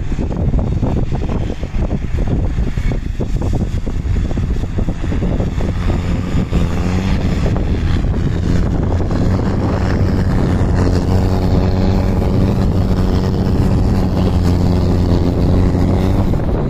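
Land Rover Discovery's engine running under load as it drives up a slope through deep snow. It is mixed with wind on the microphone at first, then grows louder and steadier from about six seconds in as the vehicle draws near.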